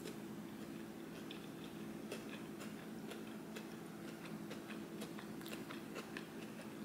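Faint chewing while eating shrimp: small, irregular wet clicks and crunches from the mouth, over a steady low hum.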